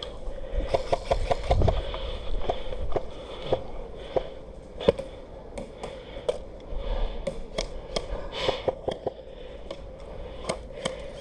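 Airsoft guns firing: a short rapid run of sharp cracks in the first couple of seconds, then scattered single shots, with a faint steady hum underneath.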